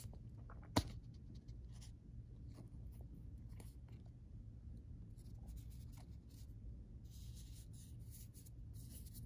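Pokémon trading cards being slipped into soft plastic penny sleeves: faint scratchy rustling of card against plastic with light ticks, and one sharp click about a second in.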